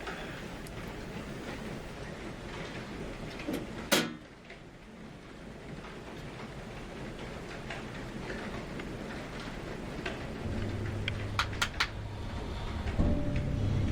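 Horror short film soundtrack: a steady rushing noise with a single sharp bang about four seconds in, a few quick clicks near the end, and a low hum that grows louder over the last few seconds.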